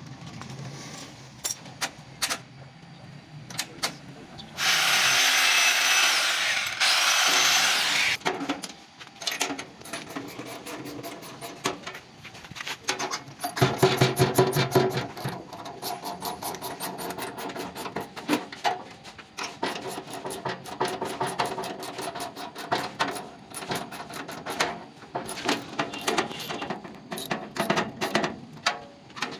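Power drill running in short bursts, a long one about five seconds in and a shorter buzzing one about fourteen seconds in. Between them come many sharp metallic clicks and taps of hand tools on a metal switch enclosure.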